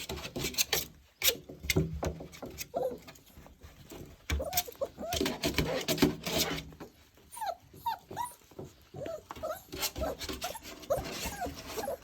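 Six-week-old Welsh Terrier puppies whimpering and yipping in short, high whines, most of them in the second half. Scattered clicks and knocks run through it.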